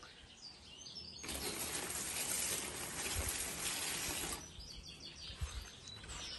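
Water poured from a glass jar onto a potted plant, a steady pour of about three seconds starting about a second in. Small birds chirp faintly around it.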